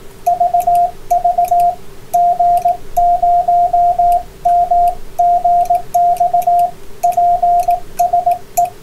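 Morse code (CW) sent as a single-pitched tone, keyed in quick dots and dashes with short gaps between groups, over a steady lower drone and radio hiss.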